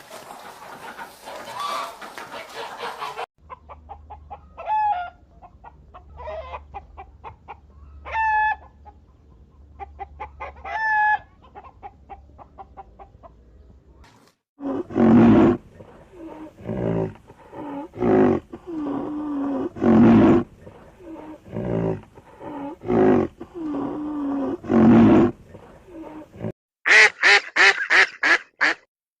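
A run of farm-animal calls. First, soft rapid hen clucking with a few higher calls. Then a long series of louder, lower calls about a second apart, and near the end a rapid string of duck quacks.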